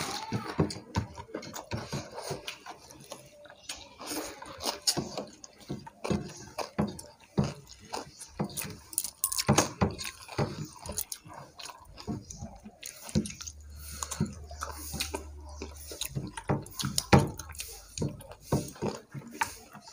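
Close-up eating sounds of two people eating rice and chicken curry with their fingers: wet squelching as rice is mixed with gravy on paper plates, with chewing and mouth sounds, made of many short irregular clicks and smacks.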